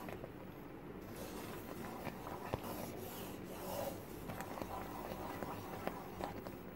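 Wooden spatula stirring and scraping a thick coconut paste around a nonstick pan. It makes a steady rubbing sound with scattered light ticks where the spatula knocks the pan, the sharpest about two and a half seconds in.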